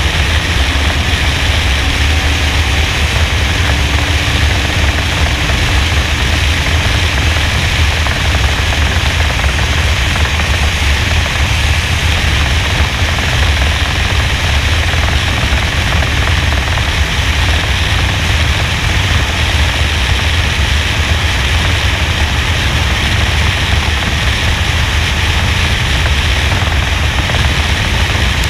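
NASCAR stock car running at speed on an oval, heard through a roof-mounted GoPro as a steady, loud rush of wind noise that all but buries the V8 engine, so lifting off and getting back on the throttle can hardly be heard.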